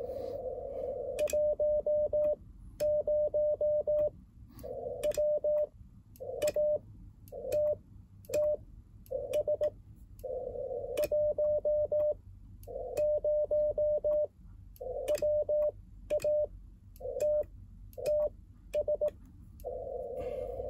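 Morse code (CW) tone of about 600 Hz from an Icom IC-705 transceiver, keyed in dots and dashes grouped into characters with short pauses between them, over a band of receiver hiss. Light clicks from the paddle key go with the keying.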